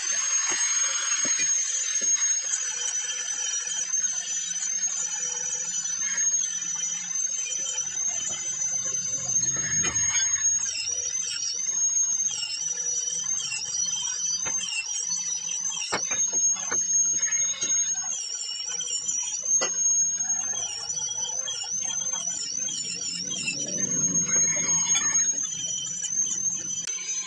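Clear plastic stretch film rustling and crackling as it is wound around a rebuilt turbocharger, with scattered clicks. Over it runs a continuous high-pitched whine that wavers and dips in pitch.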